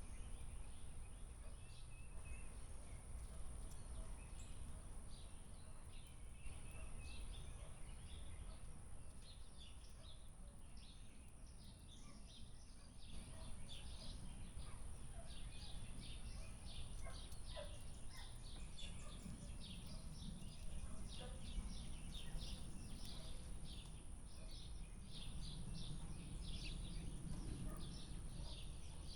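Small birds chirping, many quick short calls that grow busier and denser from about halfway through, over a steady low outdoor rumble.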